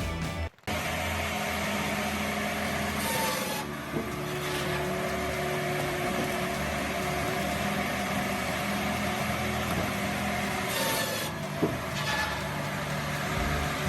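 A saw cutting steadily through wood. It starts after a brief gap about half a second in.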